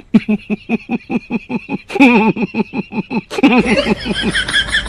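A man laughing in a fast run of short 'ha-ha' pulses, turning into a higher, breathier laugh about three and a half seconds in.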